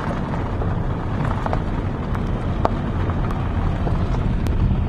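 Inside a moving car: a steady low rumble of engine and road noise with wind, and scattered light rattles and knocks.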